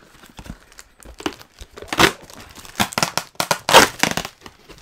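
Cardboard mail package and its paper packing being handled and opened: uneven crinkling and tearing rustles, loudest about two seconds in and again nearly four seconds in.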